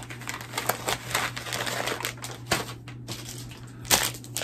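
Face-mask packets and other packaged products being handled: crinkling of the packaging and a quick run of small clicks and taps, with a louder knock about four seconds in.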